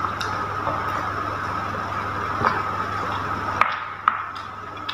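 A few light clicks of a metal spoon against a glass bowl and a bite into a fried spring roll, over a steady electrical-sounding room hum.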